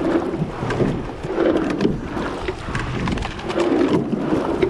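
Racing rowing eight under way: the sounds of the stroke come back about every two seconds, with oars working in their gates and blades in the water, over wind on the microphone and water rushing past the hull.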